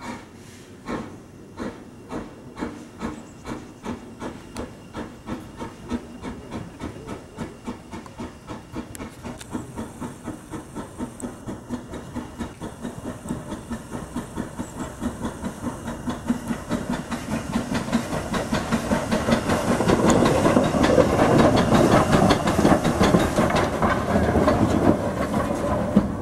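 Hunslet 'Austerity' 0-6-0ST saddle-tank steam locomotive running light, its exhaust chuffing in steady beats over a hiss of steam from the cylinder drain cocks. It grows louder as it draws near and is loudest about twenty seconds in.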